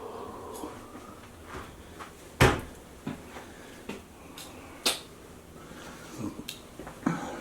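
Cabinet doors and household items knocking and clattering as they are handled: a sharp knock about two and a half seconds in, another near five seconds, and lighter clicks between.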